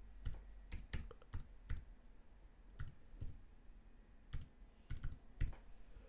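Typing on a computer keyboard: about a dozen separate keystrokes at an uneven pace, with a couple of short pauses.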